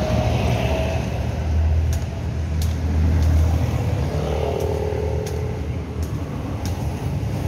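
Close street traffic: engine rumble from a box truck, then a motorcycle and a car driving past, the motorcycle's engine hum rising and falling about halfway through. A few short sharp clicks sound over it.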